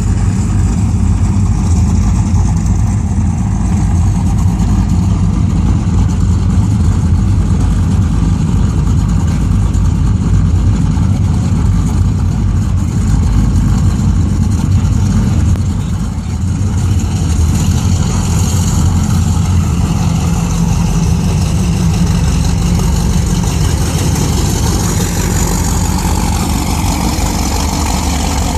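Fountain power boat's engines idling steadily.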